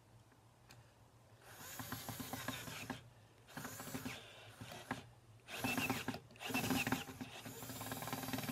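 Cordless drill driving a screw into the wooden chair, run in several bursts with short pauses, starting about a second and a half in.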